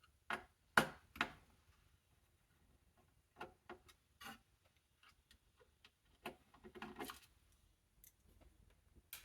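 Clicks and taps of a Dell Inspiron 3030 small-form-factor desktop's plastic and metal parts being handled during disassembly. There are a few sharp clicks in the first second, more taps in the middle and a short scrape about seven seconds in.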